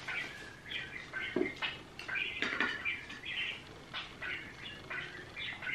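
Quick high chirping calls repeating throughout, with a few sharp clicks of dishes and cutlery at the table.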